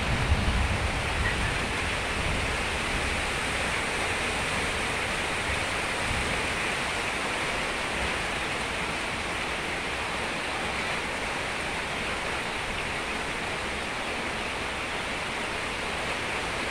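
Steady, even hissing din inside a broiler chicken shed, with no single call or sound standing out. A low rumble fades out in the first second or so.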